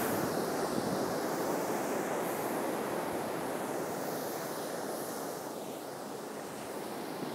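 Steady rushing of ocean surf breaking along the shore, easing a little about six seconds in.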